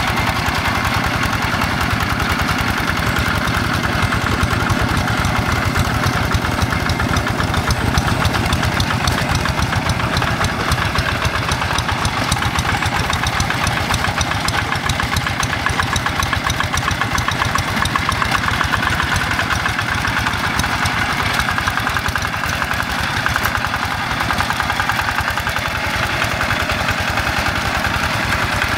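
Yanmar single-cylinder diesel engine of a Quick G1000 two-wheel hand tractor running steadily under load as its cage wheels churn through paddy mud.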